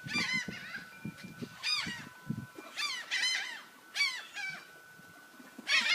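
A flock of gulls calling, short harsh cries coming in irregular clusters every second or so, as they are fed scraps.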